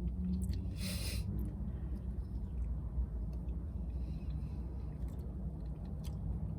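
Steady low rumble, with a brief rustle about a second in and a few faint clicks.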